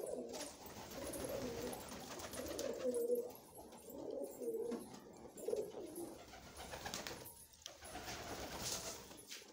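Domestic pigeons cooing: a run of low, warbling coos that trails off after about six seconds.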